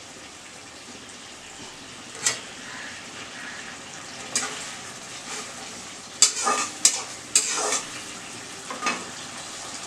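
Vegetables frying and sizzling in a kadai, with a metal spoon stirring and knocking against the pan in sharp clinks, a quick run of them about six to eight seconds in.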